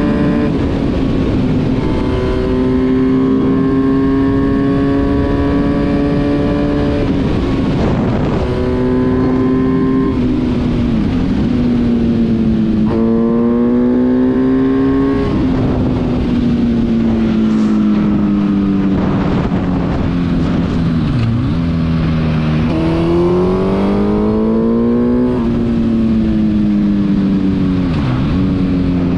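Kawasaki Z1000 inline-four motorcycle engine, swapped into a Yamaha Raptor 700 ATV, running at high revs under way. Its pitch holds steady for stretches, drops sharply and recovers several times, and climbs again under acceleration.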